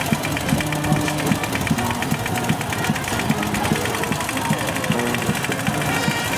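Small engine of a two-wheel walking tractor (motoculteur) running steadily with a fast, even firing beat, and voices talking over it.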